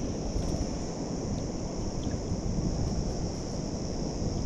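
Wind buffeting the microphone as a steady low rumble, with a constant high hiss above it.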